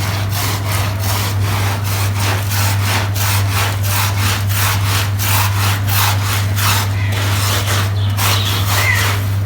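Stiff brush scrubbing a wet, heavily soiled carpet in quick back-and-forth strokes, about three a second, over a steady low hum.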